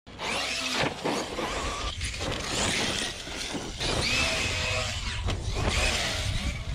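Large electric RC basher truck running hard on dirt and getting airborne. Its motor whine rises and falls in short glides over a steady rush of tyre and wind noise.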